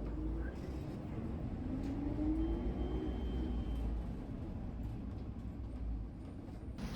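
Car driving: a steady low rumble of engine and road noise, with a whine that rises in pitch over the first few seconds.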